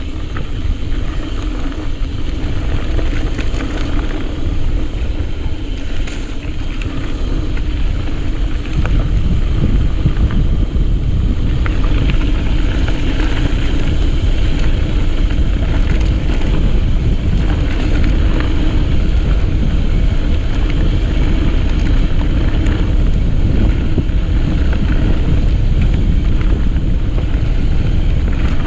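Wind buffeting the microphone of a camera on a moving mountain bike: a loud, steady low rumble that grows louder about nine seconds in, with scattered clicks and knocks from the bike on the rough trail.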